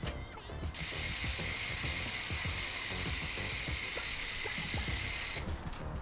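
Bicycle rear-hub freewheel ratcheting as the wheel or cranks turn: a continuous high, even buzz that starts suddenly about a second in and cuts off abruptly near the end.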